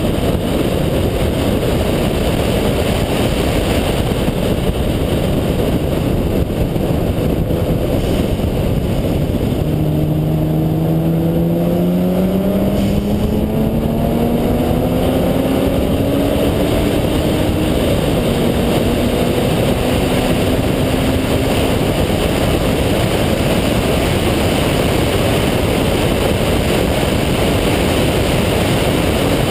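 Single-turbo Mazda RX-7's rotary engine at speed on a race track, under a steady rush of wind and road noise. About ten seconds in its pitch climbs steadily as it accelerates, dips near eighteen seconds as it shifts up, and climbs again.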